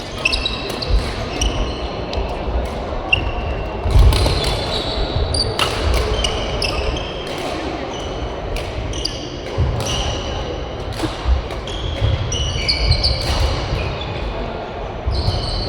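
Badminton rally sounds on a sports-hall court: players' shoes squeaking in many short high chirps, rackets hitting the shuttlecock in sharp cracks, and footfalls thumping on the floor, with voices in the background.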